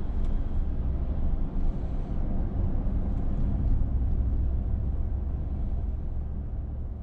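Steady low road rumble heard from inside a car's cabin while it drives at freeway speed: tyre and engine noise with no sudden events.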